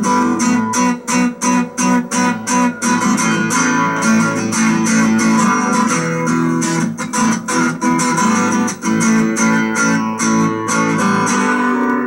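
Acoustic guitar playing a blues piece: strummed chords, with a run of short, choppy strokes and brief stops about one to three seconds in, then fuller ringing chords.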